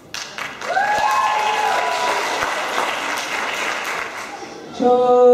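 Audience applauding and cheering, with a rising whoop about a second in. Near the end, voices begin chanting a long held note.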